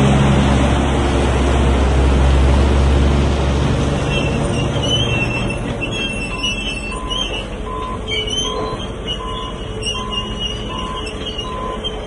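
A loaded log truck's engine running loudly as it drives past, dropping away after about four seconds. Then a backup alarm beeps steadily, about one and a half beeps a second, over scattered high squeaks and mechanical yard noise.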